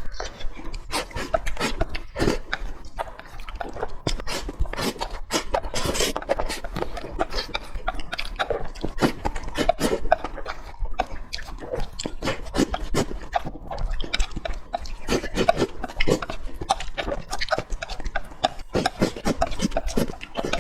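Close-miked eating sounds: wet chewing, lip-smacking and sucking on braised pork trotters, a fast, irregular run of smacks and clicks.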